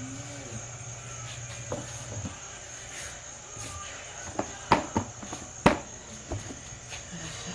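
Crickets chirring in a steady high-pitched drone, with a few sharp knocks about halfway through.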